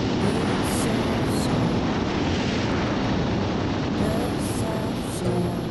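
Steady rush of wind and road noise from a motorbike riding at speed on a paved road. Music begins to fade in near the end.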